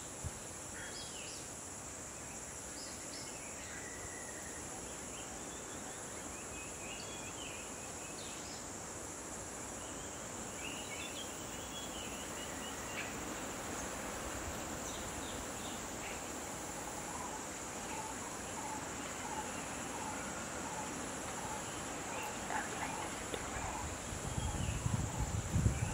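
Steady high-pitched insect drone with scattered bird chirps and a faint repeated call. Near the end a low rumbling comes in and is the loudest sound.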